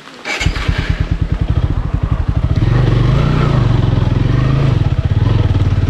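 Single-cylinder motorcycle engine starting about half a second in and settling into a steady idle. Its pitch rises briefly around the middle in a short blip of the throttle.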